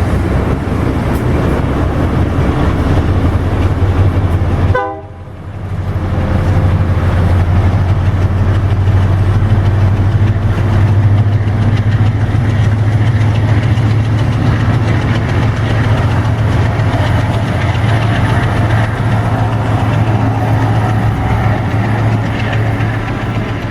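Freight train passing: a diesel-electric locomotive's engine gives a steady, deep drone over the noise of the wheels on the rails. The sound drops out briefly about five seconds in, then returns.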